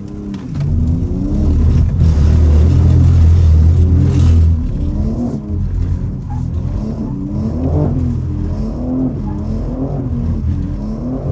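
BMW M3 engine revving up and down over and over, loudest in the first few seconds.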